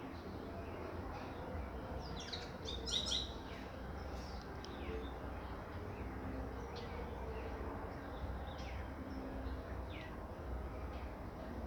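Birds chirping in short, falling calls, a quick cluster of them about three seconds in, over the steady hiss of light rain and a low rumble.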